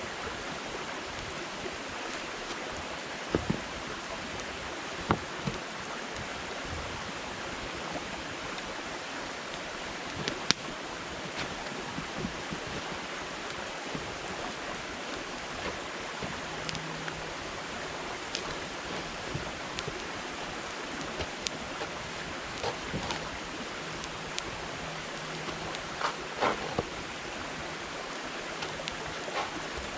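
Wood campfire burning: a steady hiss with scattered sharp crackles and pops from the burning firewood, a few of them louder snaps.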